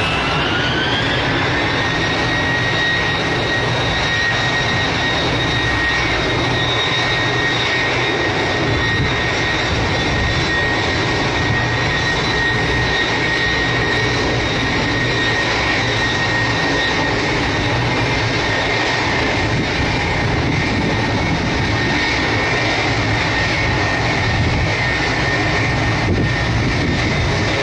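Ilyushin Il-78 tanker's four turbofan engines running as it taxis: a steady jet roar with a whine that rises in pitch over the first couple of seconds, then holds steady.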